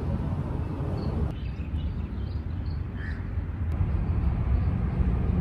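Outdoor ambience: a steady low rumble, with a few faint high chirps between about one and three and a half seconds in.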